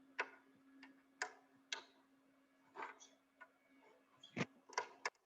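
Irregular light clicks and taps of work on an LED display module as its plastic mask is taken off, about a dozen in all with a sharper one near the end, over a faint steady hum.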